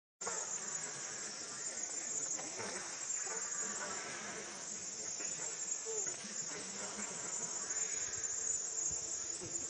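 Steady, high-pitched insect chorus of crickets or cicadas droning without a break.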